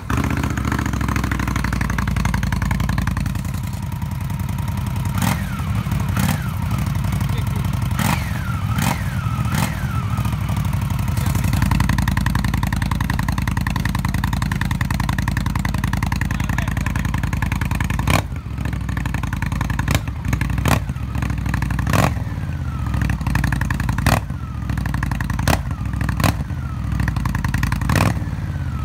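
Indian Scout's liquid-cooled V-twin running through Jekill & Hyde slip-on mufflers, idling with the throttle blipped about a dozen times. Each rev spikes sharply and falls quickly back to idle, with a group of blips between about five and ten seconds in and another in the second half.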